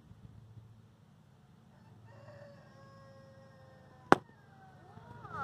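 A faint long call with a slightly falling pitch, like a rooster crowing, then a single sharp crack about four seconds in: a metal softball bat striking the ball.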